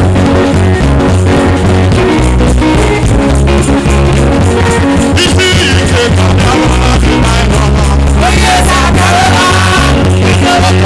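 Loud upbeat music with a steady beat, strong bass and guitar, and some singing.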